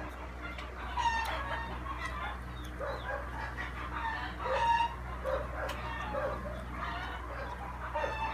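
Roosters crowing, with chickens clucking in short calls between the crows, over a steady low hum.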